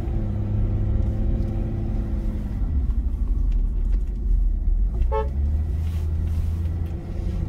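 Engine and tyre rumble of a Hyundai Veracruz SUV, heard from inside the cabin as it climbs a narrow mountain road. A brief high-pitched toot comes about five seconds in.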